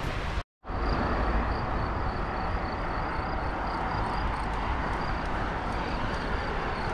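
Steady rushing noise of riding a bicycle, picked up by a handlebar camera, with a strong low rumble and a faint fast regular ticking. It starts after a short break about half a second in.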